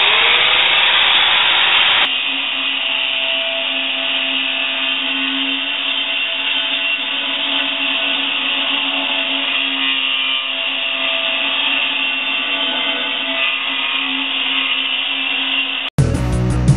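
Handheld angle grinder spinning up with a quick rising whine, then grinding into steel plate with a steady loud whine and hiss to cut a hole in it. Near the end it cuts off abruptly and guitar music begins.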